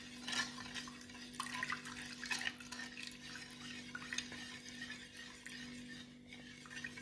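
Lemon juice poured from a glass bowl into a pan of thick cornflour-and-sugar mixture, then a metal spoon stirring it, with faint scattered scrapes and clinks against the pan. A low steady hum runs underneath.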